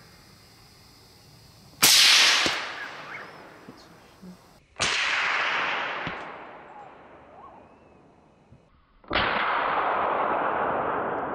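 A single rifle shot about two seconds in, its report echoing and dying away over about a second. The same shot then sounds twice more, each time lower-pitched and more drawn out, like slowed-down replays.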